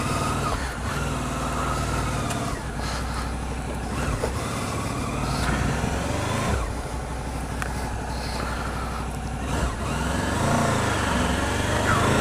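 Sport motorcycle engine pulling away and riding off, its pitch rising several times as it revs up in low gear.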